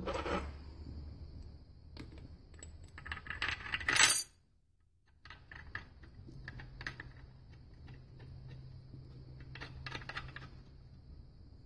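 Small steel parts clinking and clicking against the metal of a transmission case as a retaining cap is seated and its cap screws are started by hand, with a burst of louder clinking about four seconds in and lighter clicks after.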